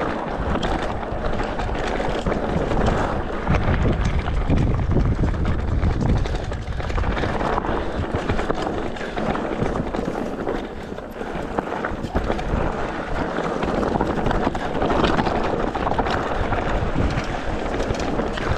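Heavy wind buffeting the microphone: a steady rushing noise with gusty low rumble and no distinct engine note.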